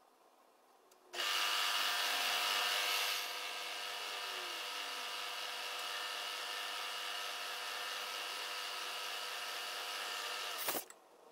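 Drilling machine spindle starts about a second in and runs with a steady whine while a small bit drills a set-screw hole in a brass gear hub. It is loudest for the first couple of seconds, then runs steadily and stops abruptly with a knock near the end.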